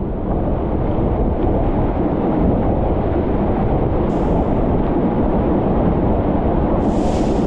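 Waterfall roaring close by: a loud, steady rush of falling water, deep and even throughout.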